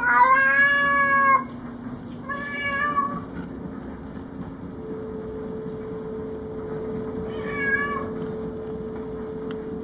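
Domestic tabby cat yowling three times in territorial threat at an intruding cat: a loud, drawn-out call of about a second and a half at the start, a shorter one about two seconds later, and a brief one near the end.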